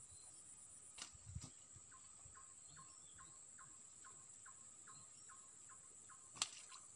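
Faint insect chorus: a steady high whine with a short chirp repeating about three times a second. A few soft knocks come about a second in, and a single sharp click near the end.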